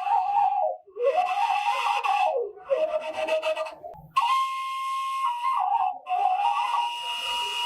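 Washint, the Ethiopian end-blown bamboo flute, playing a breathy, ornamented melody in short phrases. About halfway through, a higher note starts suddenly and is held steady before the line slides back down.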